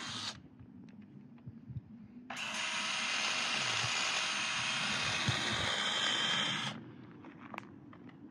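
Cordless drill run against a slate slab: one run cuts off just after the start, then about two seconds in it starts again and whirs steadily for about four seconds with a high whine before stopping.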